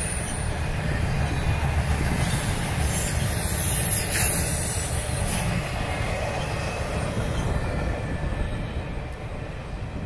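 Norfolk Southern intermodal freight cars loaded with trailers rolling past on the rails: a steady low rumble of steel wheels with a high hiss over it, fading over the last few seconds as the end of the train goes by.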